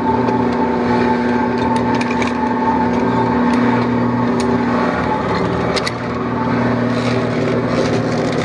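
Shrimp trawler's deck machinery and engine running with a steady mechanical drone, one of its tones dropping out about five seconds in, with scattered light ticks.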